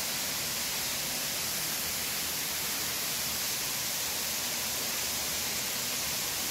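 Steady rushing of a waterfall swollen by heavy rain, heard from inside the cave behind the falling water.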